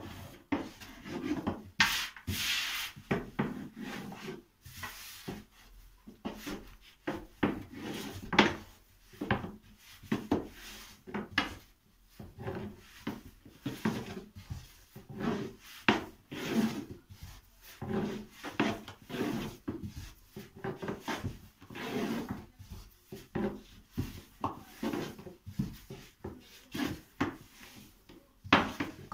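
A long, thin wooden rolling pin (oklava) rolling out a large sheet of yufka dough on a round floured wooden board: repeated rubbing strokes of wood over dough and wood, about one or two a second.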